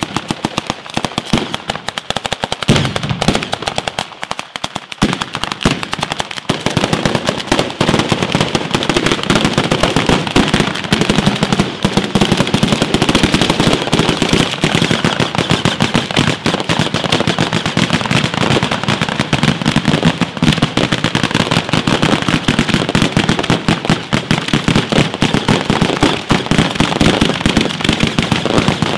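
Italian ground firework barrage (batteria): chains of firecrackers going off in a dense, unbroken rapid-fire crackle, like machine-gun fire, thickening after about six seconds.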